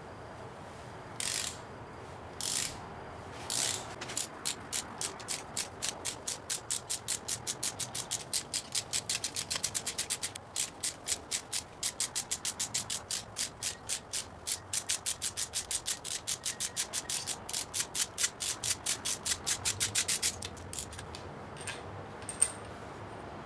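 Ratchet wrench with a socket on an extension clicking as 10 mm supercharger bolts are backed out. It gives a few short bursts at first, then a long run of even clicks at about five a second that stops a few seconds before the end.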